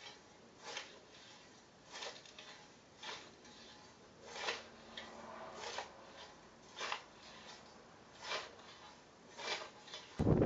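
Hand scythe swishing through grass, about eight strokes at a steady pace, each a short swish of the blade cutting stems. Near the end, a sudden loud rush of wind on the microphone.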